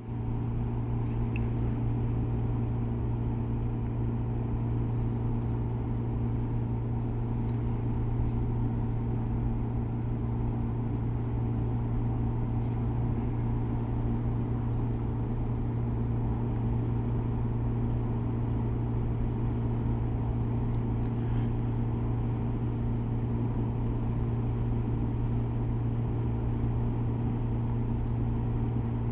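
Daikin multi inverter heat pump outdoor unit running with a steady low hum, with a few faint ticks.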